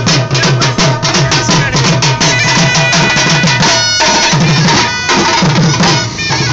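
Dhol drum beaten in a fast, driving rhythm, with a reed pipe holding steady, shrill notes over the beat.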